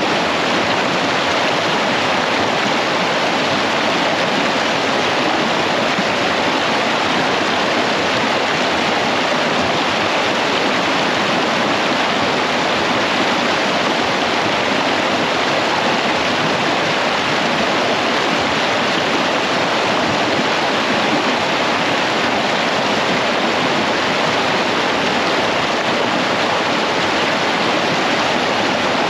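Shallow, fast creek rushing over rocks in white-water riffles: a steady, loud rush of water with no change.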